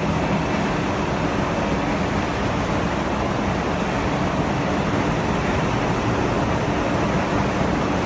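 Steady machinery noise of a running continuous peanut frying and processing line: an even rushing din with a low hum under it and no separate knocks or clatters.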